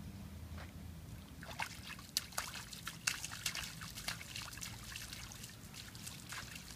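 A toddler splashing in a shallow rain puddle on pavement. A quick, irregular run of small water splashes starts about a second and a half in, eases off after about five seconds, and a couple more come near the end.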